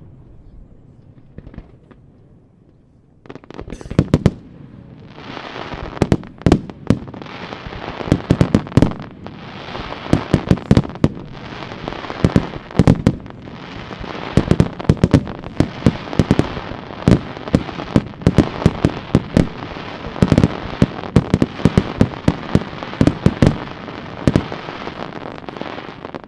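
Aerial fireworks display. After about three quiet seconds, a dense barrage of loud shell bangs starts, several a second, over a steady crackle, and it stops just before the end.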